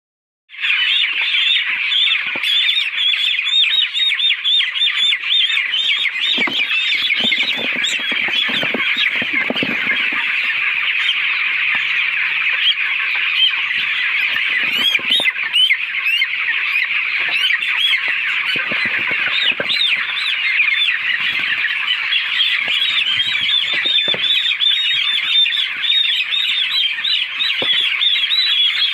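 A large poultry flock calling without a break: a dense chorus of many overlapping high-pitched calls, starting about half a second in.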